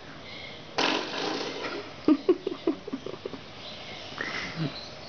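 Coiled-spring door stopper, its plastic end cap removed, being flicked by a pet. It gives a sudden twanging boing about a second in that rings and fades. A quick run of about eight sharp knocks follows, then another twang near the end.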